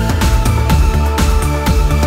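Electronic background music with a steady beat, about two beats a second, over a sustained bass line.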